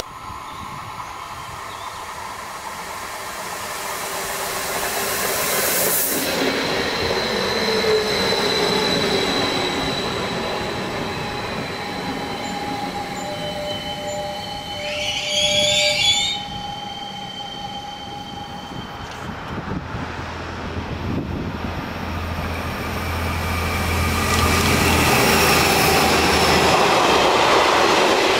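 Double-deck electric multiple unit (Stadler KISS) running into the station and braking, with steady whining tones and a brief, loud squeal of the brakes about halfway through. Near the end a freight train of flat wagons loaded with concrete sleepers rolls past with a broad rising rumble.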